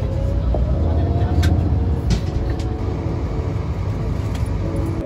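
Steady low rumble of a moving tour vehicle heard from inside, with a faint hum above it; it cuts off suddenly at the end.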